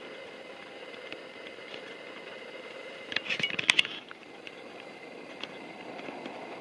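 Hitachi Class 803 electric train running slowly round a tight curve, a steady hum with a faint whine. About three seconds in, a brief burst of crackling with squealing tones rises over it for about a second.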